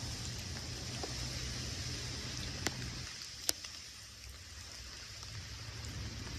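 Steady hiss of rain falling, with a low rumble underneath that drops away about halfway and two sharp ticks a little under a second apart near the middle.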